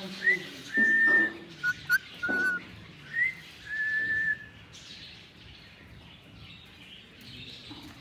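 Indian ringneck parakeet whistling: a short upward-sliding note followed by a long steady note, given twice, with a few short chirps between. The whistling stops about halfway through.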